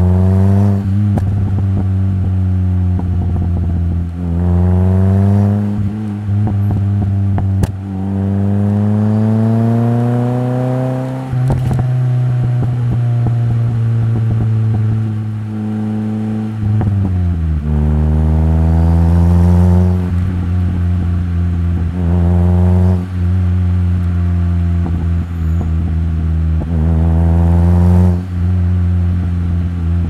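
Mitsubishi Colt CZT's turbocharged 1.5-litre four-cylinder heard through the exhaust, pulling up through the gears in town. The pitch climbs in several short pulls and falls back at each gear change, with pops and crackles when the throttle closes, most plainly about eleven seconds in.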